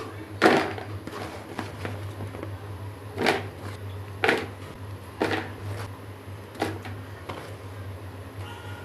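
Kitchen work: a handful of sharp, irregular knocks and clatter, with a steady low hum underneath.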